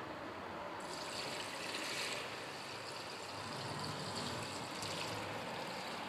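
Spiced golgappa water poured from a pot through a wire-mesh strainer into a glass bowl. The pouring starts about a second in as a steady splashing trickle.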